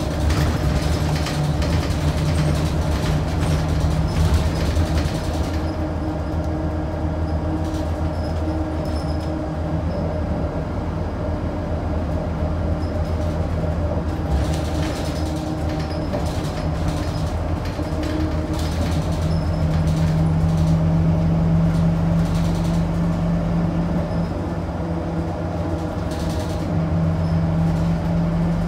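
Scania DC9 nine-litre six-cylinder diesel engine of a Scania K94UB bus running under way, heard on board, with scattered rattles. The engine note swells about two-thirds of the way through and again near the end.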